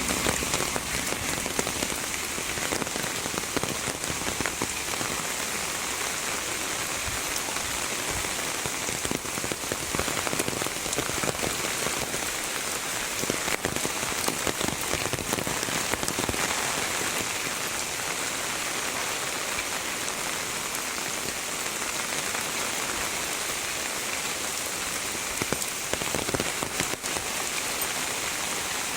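Heavy rain falling steadily, a dense even hiss with many small drops ticking on surfaces.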